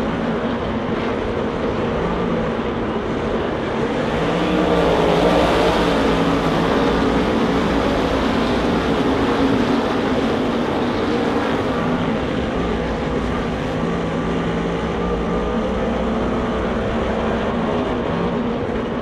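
A field of Super Sportsman winged sprint cars' V8 engines running hard around the dirt oval, several engines at once with pitch rising and falling as they go through the turns; loudest about a third of the way in as the cars pass close by.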